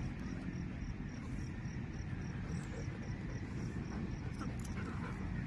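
Outdoor ambience: a steady low rumble with a faint high chirp repeating about three times a second.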